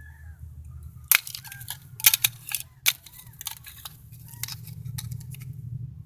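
A bullet-damaged iPod being handled: a string of irregular sharp clicks and crunches from its broken screen and casing. A steady low rumble runs underneath.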